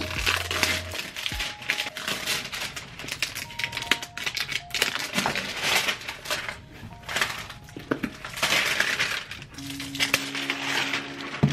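Plastic shrink-wrap crackling and crinkling as it is torn and peeled off a boxed manga set, with many sharp crackles throughout, over soft background music.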